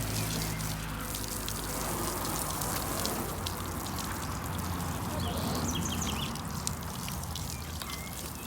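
Water spraying from a garden hose and splashing onto a Volkswagen Kombi van being washed, a steady hiss.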